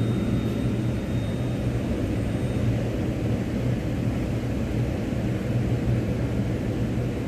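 Steady low hum and rumble inside a Delhi Metro Pink Line train car standing at a platform, from the train's onboard equipment running.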